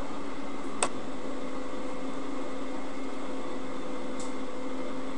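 Steady background hiss with a faint low hum, and one sharp click about a second in.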